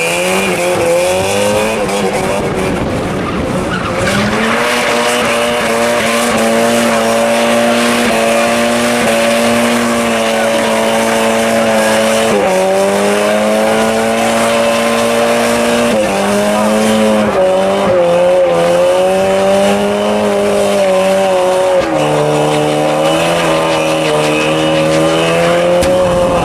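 A car engine held at high revs while the rear tyres spin and skid through continuous donuts. The engine note stays steady and drops in steps a few times, about halfway, a little later, and again near the end.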